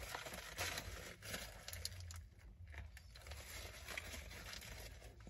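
Faint eating sounds: a cheeseburger being chewed, with a few soft clicks and rustles from handling it in its paper wrapper, over a low steady hum.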